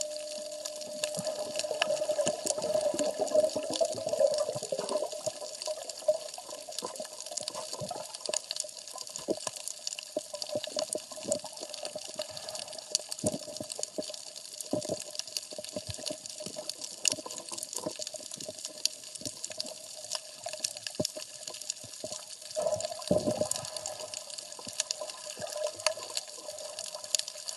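Underwater sound: a constant crackle of many small clicks over hiss, with a steady hum underneath. There is a stretch of bubbling about two to five seconds in and a brief low rush of water near the end.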